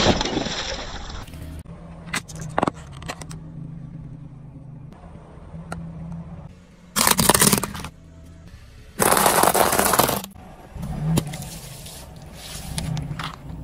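A car tyre crushing objects on asphalt: a watermelon full of cola bursts with a splash at the start. Further down, more objects are crushed in several loud, noisy bursts of about a second each, over a low, steady car hum.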